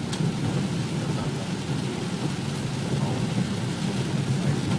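Steady low rumble with a hiss of rain over it: road and rain noise of a vehicle driving in the rain.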